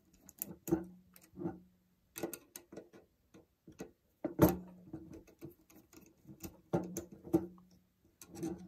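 Screwdriver loosening the terminal screws on a well pump pressure switch, with irregular small metallic clicks and ticks as the blade turns and the wires are worked free.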